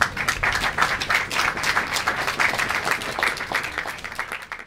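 Audience applauding: many people clapping at once, starting suddenly and thinning out near the end.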